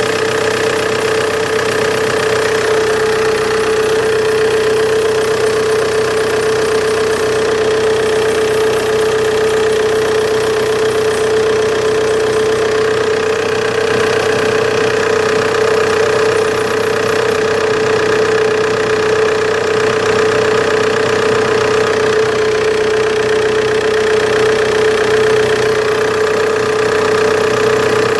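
Opel Insignia engine idling with a strong, steady whining tone over the engine noise, unchanged throughout. The owner suspects a bad serpentine belt, since spraying water on the belt silences the noise for a few seconds.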